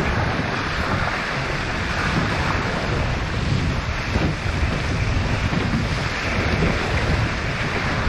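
Steady wind noise on the microphone over the rush and splash of water along the hulls of an F18 catamaran sailing fast.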